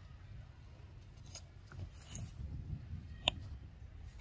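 Long-tailed macaques rustling and tearing crisp cabbage leaves, with scattered crackles and one sharp click a little after three seconds in, the loudest moment. A low steady rumble underlies it.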